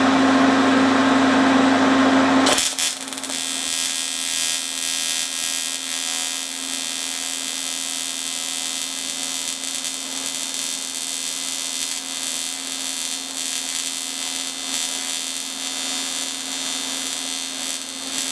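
AC TIG welder arc on thin aluminium pipe. A steady low hum gives way about two and a half seconds in to a continuous high hissing buzz that holds steady and cuts off right at the end.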